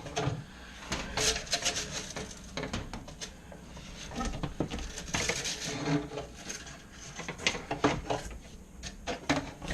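A dryer vent tube being scrubbed out: irregular rubbing and scraping with scattered clicks and knocks.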